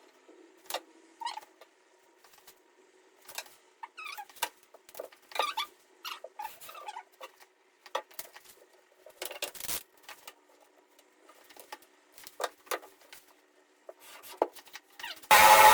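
Scattered light clicks, taps and short scrapes of tools and materials being handled, over a faint steady hum. Near the end a power tool starts up loudly and keeps running.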